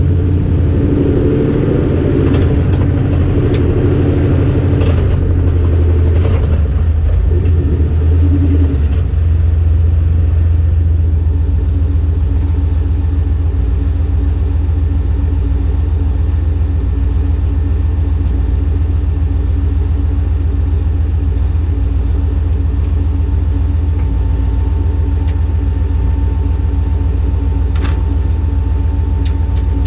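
Car engine running steadily, with more going on in the first nine seconds before it settles to an even low drone.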